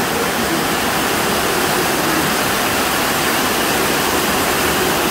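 Steady rain heard from under a corrugated metal roof: a loud, even hiss that does not let up.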